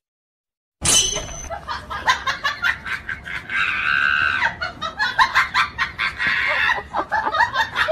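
Human voices shrieking and laughing, starting suddenly about a second in with a high shriek, then rapid laughter with a long, high squeal near the middle.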